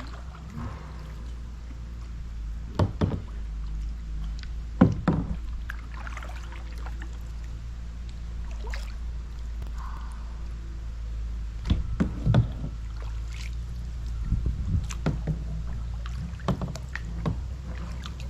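Small boat being paddled: strokes through the water, with sharp knocks every one to three seconds over a steady low rumble.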